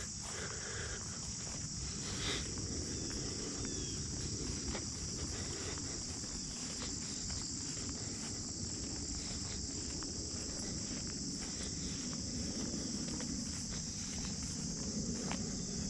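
Insects trilling steadily in a high, even chorus, over the crunch and rustle of footsteps walking along a woodland trail.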